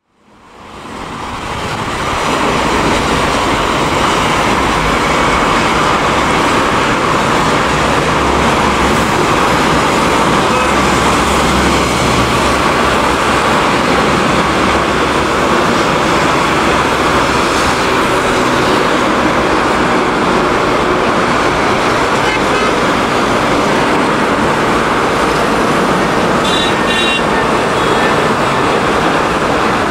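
Jet engines of an Airbus A320-family airliner climbing out after takeoff: a steady broad roar that fades in over the first two seconds and then holds level.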